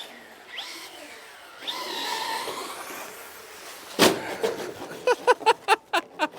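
Battery-powered electric RC car under throttle, its motor whining up in pitch twice. About four seconds in comes one sharp hard knock, then a quick run of short knocks over the next second and a half.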